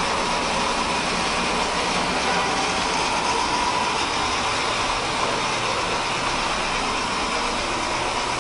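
Steady rushing background noise with a faint thin hum in it, and no distinct events.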